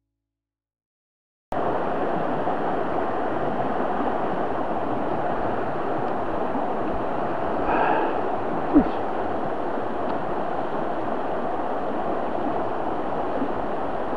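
Shallow mountain river rushing over stones in a riffle, a steady rush that cuts in suddenly after a moment of silence; one short knock a little past the middle.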